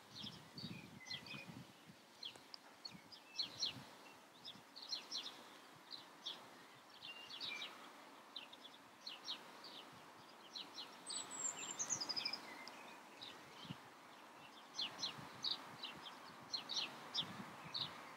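Small songbirds chirping faintly in repeated bursts of short high notes, with one falling whistled note about eleven seconds in.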